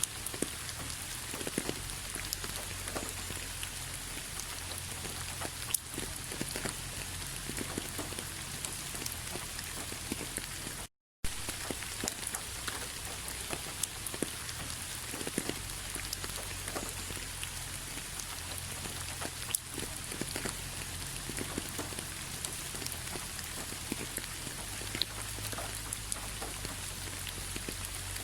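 Rain falling steadily, with many separate drops tapping distinctly over a constant patter. The sound cuts out for a split second about eleven seconds in.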